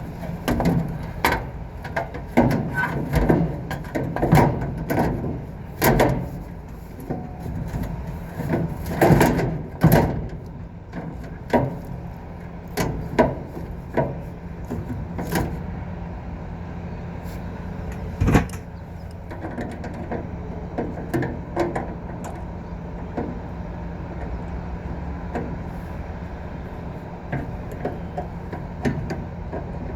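Old Temperzone air-conditioning unit running with a steady low hum, under the knocks and clatter of hand work on it, frequent in the first half and tailing off after about 18 seconds.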